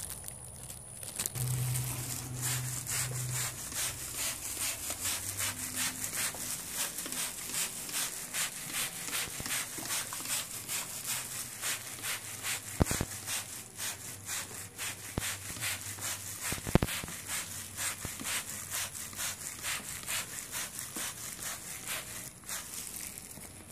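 Trigger spray bottle squeezed over and over, misting fabric stain protector onto a rug: a short hiss with each squeeze, about two a second. Two sharper clicks near the middle are the loudest sounds.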